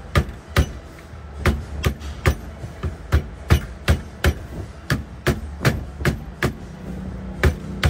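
Rubber mallet striking the back of a car steering wheel in quick, steady blows, about two or three a second, with a short pause about a second in, to knock the wheel loose from the steering column.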